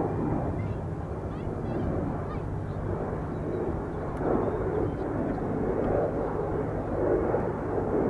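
Airbus A330-900neo's Rolls-Royce Trent 7000 turbofans running as the airliner rolls along the runway: a steady, rumbling jet roar with a low hum underneath.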